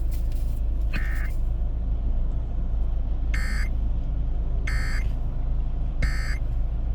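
Emergency Alert System end-of-message data code on FM radio: short, shrill, buzzing digital bursts. A fainter one comes about a second in, then three strong ones about 1.3 seconds apart, over a steady low hum.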